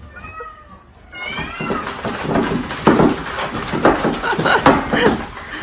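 A pet animal's high, wavering cries, several in a row.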